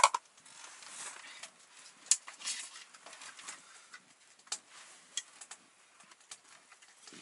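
Scattered small clicks, knocks and rustles of people handling gear at close range, with a sharp clack right at the start and another sharp knock about two seconds in.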